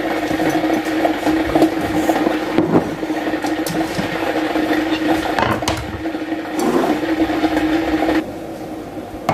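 Electric kitchen appliance motor running with a steady hum, with some clatter over it, cutting off about eight seconds in.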